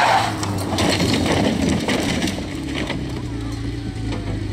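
A classic Porsche 911 rally car sliding off a gravel road into rocks and scrub, with a few crunches as it bumps over them. Its engine then settles to a steady low idle once the car has stopped.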